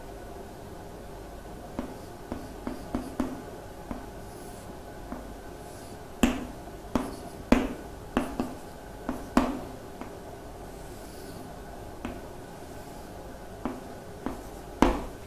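Irregular sharp clicks and taps, about twenty in all, in loose clusters, over a faint steady hum, as the teacher works on the figure of the two planes.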